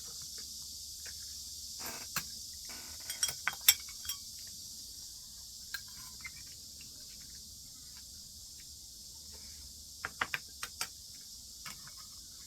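Eating utensils clicking and clinking against dishes during a meal: a few sharp clicks a couple of seconds in and a quick run of clicks about ten seconds in, over a steady high hiss.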